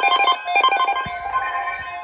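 Several NOAA weather radios, among them a Midland WR100, sounding their alert tones at once. Overlapping steady beeps at several pitches, with rapid pulsing in the first second: the radios are alarming for a severe thunderstorm watch.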